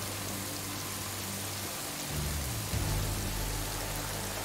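Heavy rain falls steadily, hissing on a dock, over a low sustained music drone that swells and shifts briefly about halfway through.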